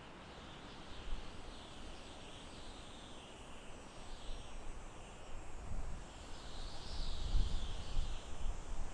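Gentle wind in a forest, leaves rustling, with low gusts buffeting the microphone that grow stronger about six seconds in. A faint high wavering chorus sits above it.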